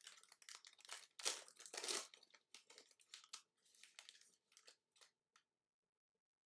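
Plastic trading-card packaging crinkling as it is handled, followed by a few light clicks and taps that stop about five seconds in.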